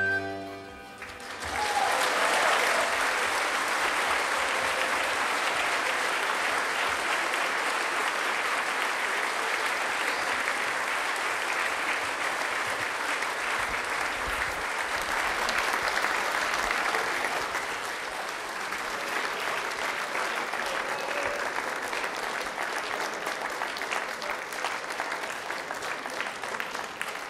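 The final chord of a small Appenzell string band (hammered dulcimer, flute, violin, cello, double bass) ends about a second in; then an audience applauds steadily, a little softer in the last third.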